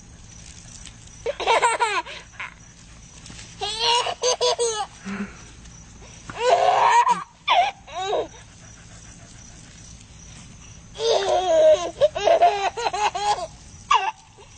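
Someone laughing in five bursts of rapid, high-pitched pulses, the longest about two seconds, with quieter gaps between.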